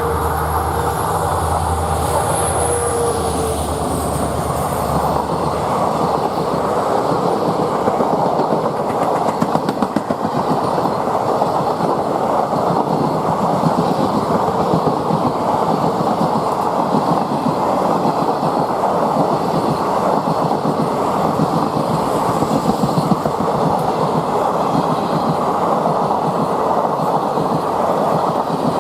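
Coaches of a passenger train rolling past, wheels clattering steadily over the rails. In the first few seconds the low engine note of the WDG-4D diesel locomotive hauling it fades away.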